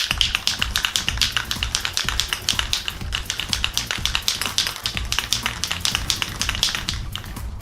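Aerosol spray-paint can being shaken, its agitator ball rattling in a fast, even run of clicks that dies away near the end. Background music plays under it.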